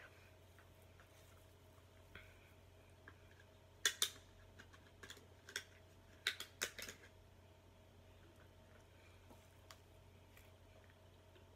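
Quiet rustling of hands working curly hair into place, with a few sharp crackles clustered about four seconds in and again around six to seven seconds in, over a low steady hum.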